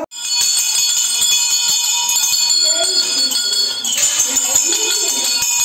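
Brass temple bells hanging on chains, rung by hand over and over: a continuous wash of overlapping bright ringing tones.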